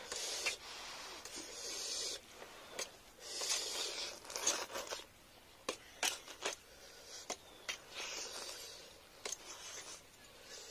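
Instant noodles slurped in long noisy sucks, three times, with short clicks of a fork and spoon against a steel platter in between.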